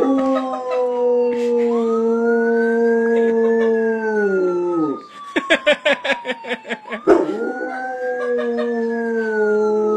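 A dog howling along with a siren's slow rising-and-falling wail: two long howls, each dropping in pitch as it ends, with a run of quick choppy yips between them about five seconds in.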